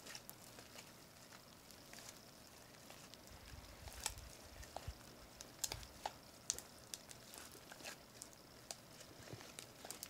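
Sticky slime with shaving cream mixed in, squeezed and kneaded by hand: faint, irregular little clicks and crackles as it is worked.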